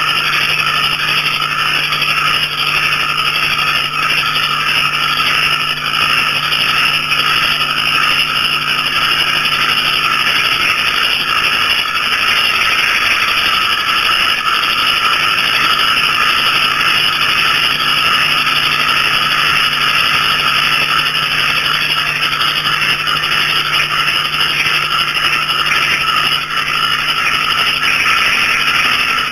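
A dense night chorus of small frogs and crickets calling continuously, many trills overlapping into one steady, high-pitched din. A steady low hum runs underneath and fades out briefly midway.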